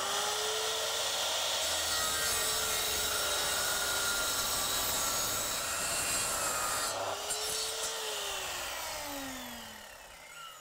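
Electric mitre saw cutting through a recycled plastic fence pale: the motor runs with the blade in the cut for about seven seconds, then the blade comes free and the motor winds down with a falling whine.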